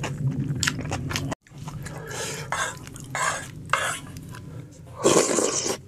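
Close-up eating sounds: a person chewing with many crisp crunching clicks, as of radish kimchi. After a brief break, a few short rasping scrapes follow, with a louder one near the end, as of a spoon working in a bowl.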